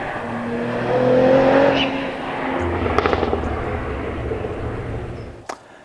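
Cadillac CT4-V Blackwing's 3.6-litre twin-turbo V6 driven hard. Its engine note holds and jumps between pitches, loudest about a second in, with a sharp crack about three seconds in. The sound fades away near the end.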